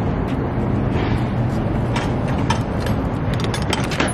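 A truck engine idling steadily with a low hum, with a quick run of metallic clicks and rattles in the last second.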